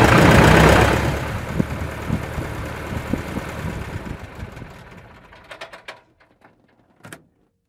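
Piper J3 Cub's small air-cooled engine running loudly, then dying away over several seconds as it is shut down, with separate knocks as the propeller slows and stops. A few faint clicks follow.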